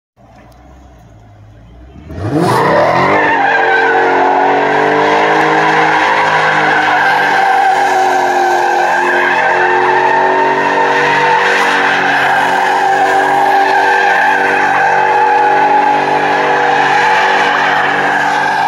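A Dodge Challenger Scat Pack's 6.4-litre HEMI V8 rumbles low for about two seconds, then revs up sharply and is held at high revs through sustained wheelspin while the car drifts in circles. The rear tyres squeal steadily throughout.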